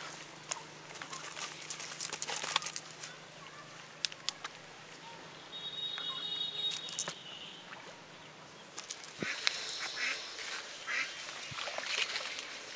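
Birds calling in short bursts, mixed with scattered clicks and rustling.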